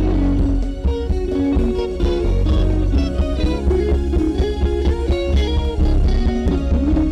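Background music with guitar over a steady bass line.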